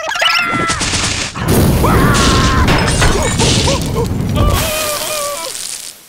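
Cartoon slapstick sound effects: loud crashing and banging noise with wordless cartoon yelling and squealing over it, fading out near the end.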